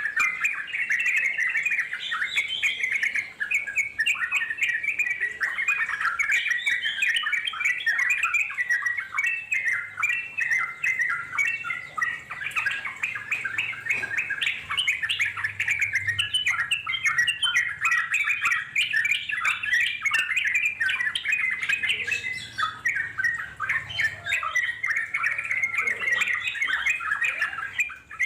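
Yellow-vented bulbul (trucukan) singing a long, fast, unbroken run of chattering notes, the rapid continuous song that keepers call 'ngeropel'.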